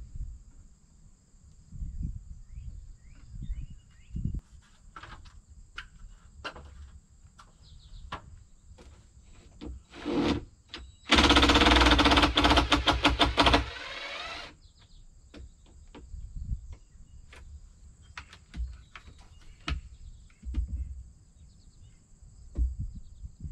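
A cordless impact driver hammering in a fast rattle for about two and a half seconds, after a brief first blip just before. Scattered knocks and taps of handling come before and after it, over a steady high insect drone.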